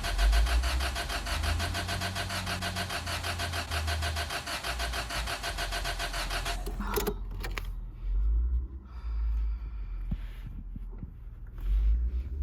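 Car's starter motor cranking the engine with a steady pulsing whir for about seven seconds without it catching, then cutting off with a clunk: a no-start.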